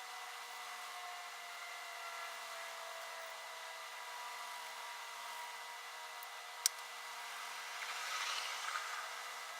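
Quiet soldering work: a steady faint hum with thin whining tones, one sharp tick about two-thirds of the way through, and a short crackling hiss near the end.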